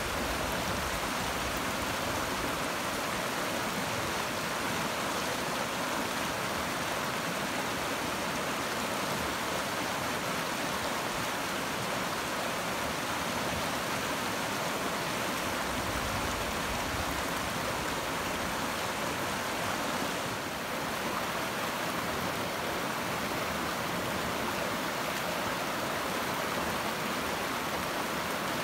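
Stream of water rushing steadily, an even hiss with a slight dip about twenty seconds in.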